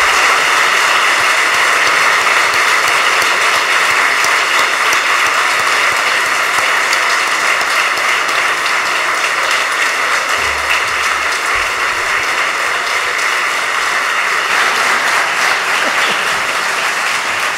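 A large crowd applauding, many hands clapping together in a steady, dense wash that eases slightly near the end.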